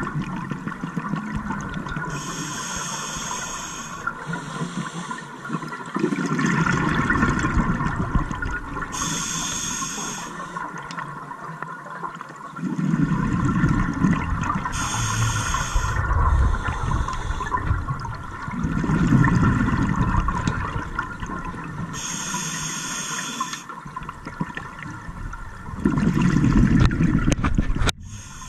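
Scuba regulator breathing underwater: a hiss on each inhale alternating with a louder rumble of exhaust bubbles on each exhale, about one breath every six to seven seconds.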